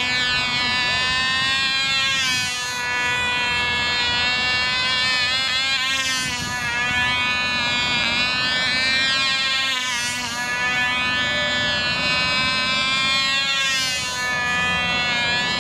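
Cox .049 two-stroke glow engine on a control-line Stuka model running flat out in flight, a high, steady buzz. Its pitch and loudness swell and sag about every four seconds as the model circles past.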